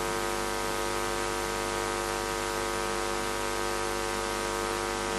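Steady electrical hum with hiss from a church sound system, an even stack of unchanging tones, the sign of a wireless microphone that is cutting out and not receiving.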